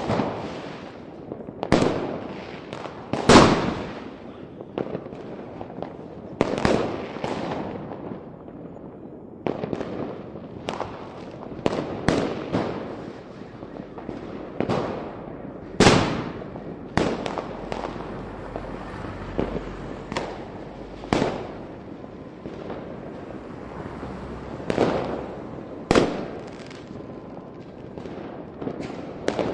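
Fireworks going off: sharp bangs of bursting shells at irregular intervals, each trailing off over about a second, over a steady background of fainter crackle and pops. The loudest bang comes about three seconds in.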